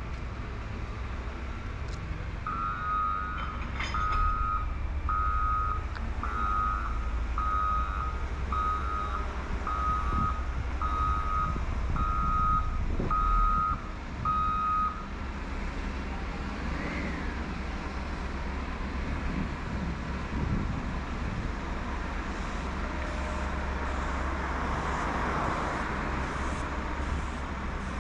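Reversing alarm on construction machinery: about a dozen steady beeps at roughly one a second, stopping about halfway through, over a steady low rumble of machinery.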